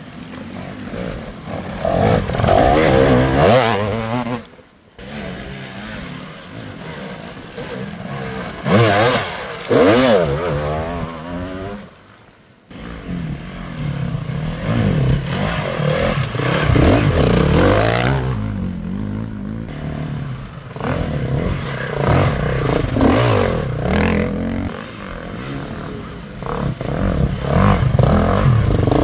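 Enduro dirt bike engines revving hard, their pitch rising and falling again and again over a clattering mechanical background. The sound breaks off abruptly twice.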